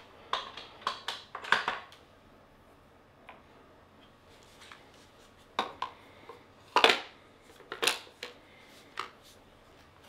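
Scattered clicks, knocks and clinks of hard metal and plastic parts being handled as a studio flash is fitted and screwed onto a light stand. A cluster of knocks comes in the first two seconds, another from about five and a half seconds on, and the loudest knock comes just before seven seconds in.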